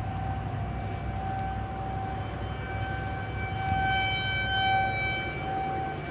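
Outdoor tornado warning siren sounding one steady, unbroken tone that swells louder about two thirds of the way through and eases back, over a low rumble.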